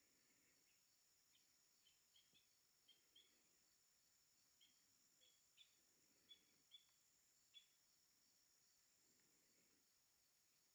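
Faint, steady high-pitched drone of an insect chorus, with about a dozen short chirps scattered through the first seven or eight seconds.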